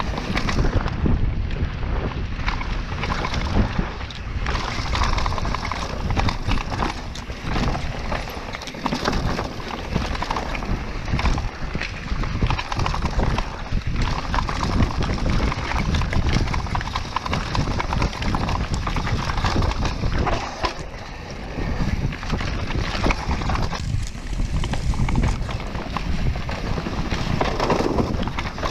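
Mountain bike running down a rough bike-park trail: frame and chain clattering with many small knocks over bumps, under a steady rush of wind noise on the microphone.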